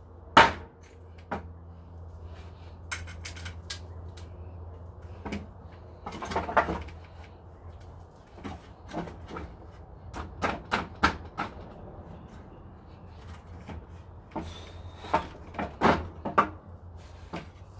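Old wooden fence board being pried loose from its nails with a hand tool: irregular sharp wooden knocks and clicks, with a brief squeak about fourteen seconds in.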